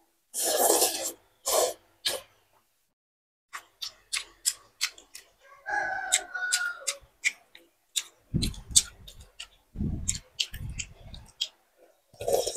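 Close-up eating sounds: a long slurp of noodles near the start, then many wet chewing clicks and lip smacks, with a few low thuds on the microphone, and a short slurp of broth from a spoon near the end. A rooster crows in the background about six seconds in.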